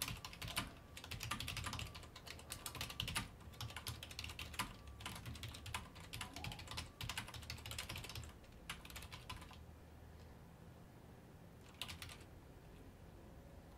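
Typing on a computer keyboard in rapid runs of key clicks that stop about two thirds of the way through, with one short burst near the end, over a low steady hum.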